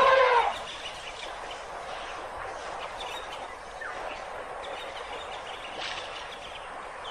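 An African elephant's trumpet call, a loud pitched blast that ends about half a second in, followed by a quieter, steady noisy background with faint scattered crackles.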